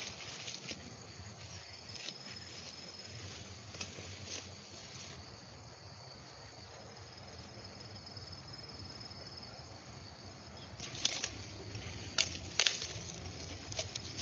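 Ramie plants rustling as they are handled and cut in the field, with a cluster of sharp snaps near the end as a sickle cuts through the stalks. A thin high steady tone sounds through the middle.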